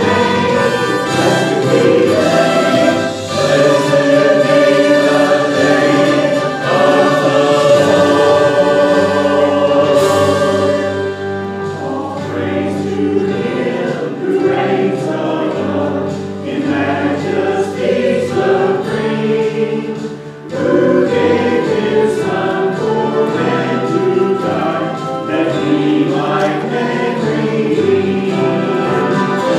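Church choir of men's and women's voices singing a sacred choral piece together, with a short pause between phrases about two-thirds of the way through.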